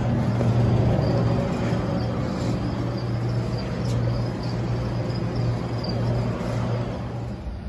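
Steady low mechanical hum with a broad hiss over it, like equipment running.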